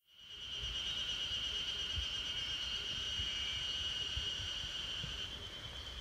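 A steady, high insect buzz holding one pitch, fading out about five seconds in, over a faint low rumble.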